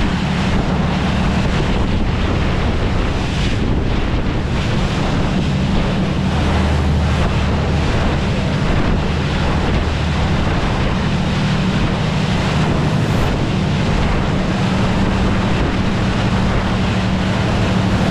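Saen Saep canal boat under way: the engine's steady low drone under the rush of water and wind buffeting the microphone.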